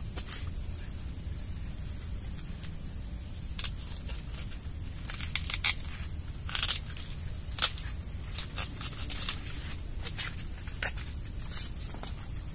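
Irregular crisp snaps and rustling as young sweet corn ears are broken off low on the stalks and the leaves are pushed aside. The snaps start a few seconds in and bunch up in the middle, with one sharp snap the loudest. A steady high thin tone and a low rumble run underneath.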